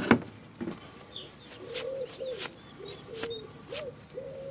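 A pigeon cooing in a string of short, rounded low calls, with faint high bird chirps. Several sharp clicks and knocks fall among them, the loudest right at the start.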